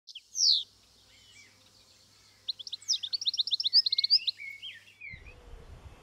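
European goldfinch singing: one high, falling note near the start, then about two and a half seconds in a fast, twittering run of bright, high notes ending in a few lower slurred notes. Near the end the song gives way to a low, steady outdoor rumble.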